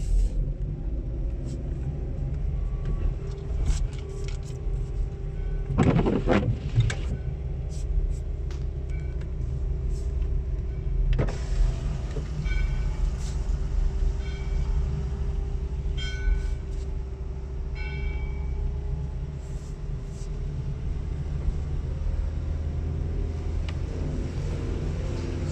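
Car driving slowly on a wet road, heard from inside the cabin: a steady engine and tyre rumble with a held low hum. There is a brief louder swish about six seconds in, and a few faint short beeps in the middle.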